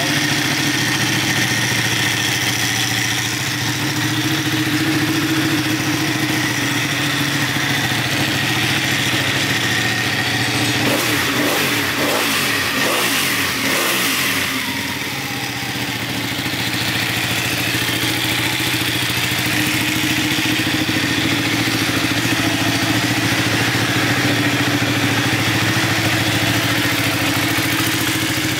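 Ducati Panigale 899's L-twin engine idling steadily, briefly revved a few times about halfway through before it settles back to idle.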